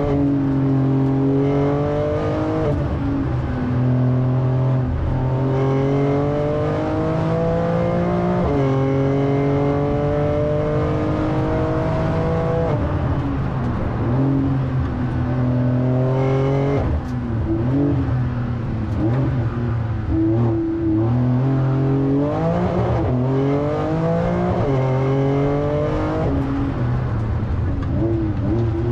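Porsche 911 Turbo S twin-turbo flat-six heard from inside the cabin, accelerating hard with its pitch climbing and then dropping at each upshift, three times in the first dozen seconds. It eases off and picks up unevenly through a slower stretch, then climbs through quick shifts again near the end.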